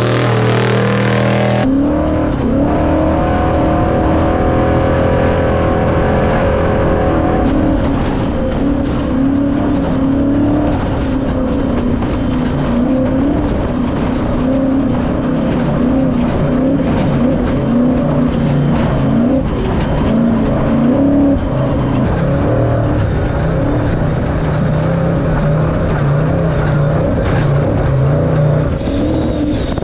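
Off-road race truck's engine running hard at racing speed, heard from inside the cab, its pitch wavering up and down with the throttle over a constant rattle and rush of wind and terrain. For the first second or two the truck is heard passing from outside before the sound cuts to the cab.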